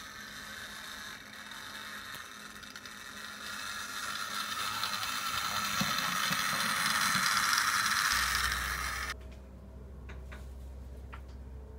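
Model railway locomotive's small electric motor and gears whirring along the track, growing louder as it comes close, then cutting off suddenly about nine seconds in. After that comes a low steady hum with a few faint clicks.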